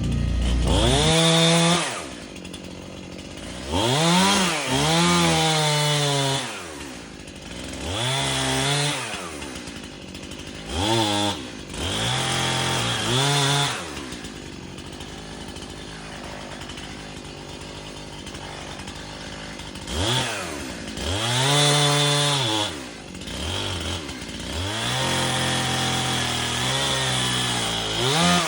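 Two-stroke gas chainsaw, the Stihl MS-291, throttled up again and again and falling back to idle between each rev, with a longer idle stretch midway.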